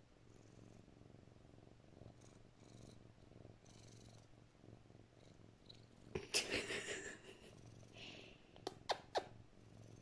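Lynx point Siamese cat purring steadily at close range. About six seconds in there is a brief louder sound, and near the end three short sharp clicks.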